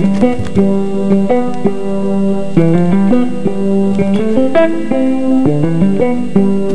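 Background music: a plucked-string melody, likely guitar, with a steady run of notes.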